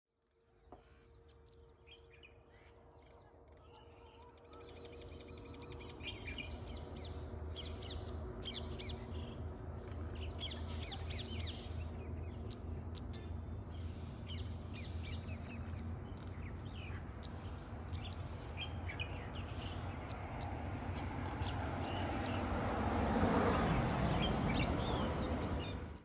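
Small birds chirping, with many short, scattered high calls over a steady low rumble. The background grows louder near the end.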